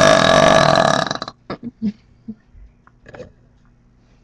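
A long, loud burp held at a steady pitch, ending about a second in; a few short, faint sounds follow.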